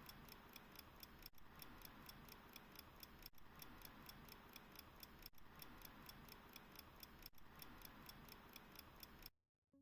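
Mechanical pocket watch ticking faintly, with a quick, even beat over a light hiss; it cuts off suddenly near the end.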